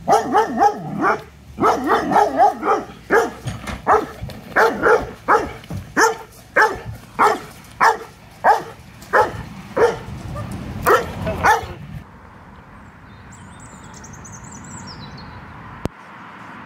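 Doberman barking over and over while lunging on the lead toward another dog, about one bark every half second for some twelve seconds, then stopping: lead reactivity toward other dogs. A quieter outdoor background follows.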